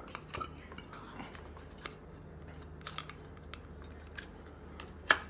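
Scattered light clicks and taps of hard plastic parts being handled and fitted as a body cover goes back onto a large-scale RC truck, with one sharper click near the end.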